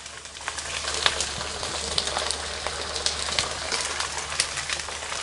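Pieces of pork skin deep-frying in hot oil, crackling steadily as they puff into fat-free pork crackling. They are stirred with a metal ladle, with scattered sharp clicks through the frying.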